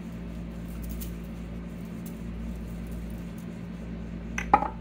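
Salt shaken from a small shaker onto fish fillets, a faint patter over a steady low hum, then one sharp click near the end as something is set down.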